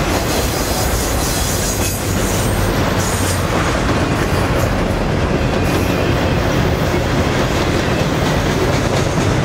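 Freight train's double-stack intermodal well cars and a trailing gondola rolling past, a loud, steady rumble of steel wheels on rail.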